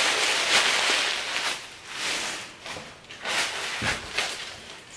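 Rustling of soft fabric being handled, dense for the first second and a half and then in short scattered rustles, with a soft bump about four seconds in.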